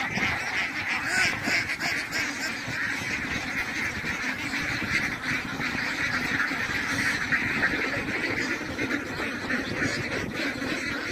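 A large flock of white domestic ducks quacking all at once: many overlapping calls with no break.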